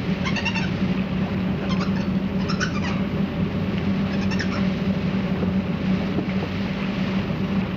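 A small monkey squealing in four short, high-pitched calls over the steady drone of a boat engine.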